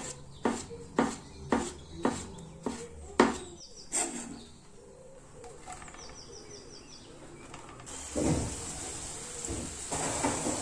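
A knife slicing fresh champignon mushrooms on a plastic cutting board, about two cuts a second for the first four seconds. From about eight seconds in, mushroom slices sizzling in oil in a frying pan.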